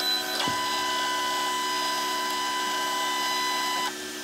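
Stepper motors of a homemade desktop CNC machine whining steadily as the Z axis slowly lowers a spring-loaded pen onto a touch-off probe plate. The pitch shifts about half a second in, and the whine cuts off abruptly near the end as the pen tip touches the plate and the probe trips.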